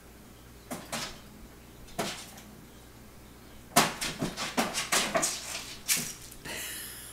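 A cat's paws knocking and scratching against a flat-screen TV and cabinet: a few single knocks, then a quick run of sharp taps and clatters about four seconds in, and a softer scuffle near the end as the cat jumps down.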